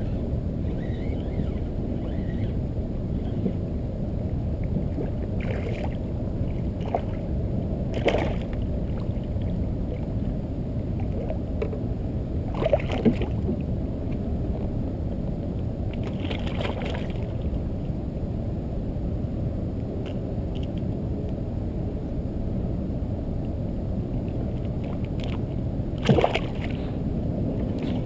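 Steady low wind noise on the microphone with water moving against a kayak's hull, broken by a few brief splashes and knocks, the loudest near the end.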